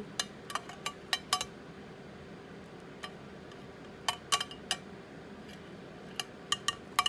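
A serving utensil clinking against a dish while a roasted pepper is scooped out. The sharp clinks come in three clusters: several in the first second and a half, a few around four seconds in, and more near the end.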